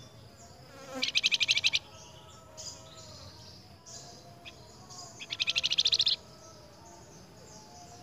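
Flamboyan bird giving two loud, rapid rattling trills about a second long each, roughly four seconds apart, with faint chirps between. The caged bird is answering another flamboyan's call.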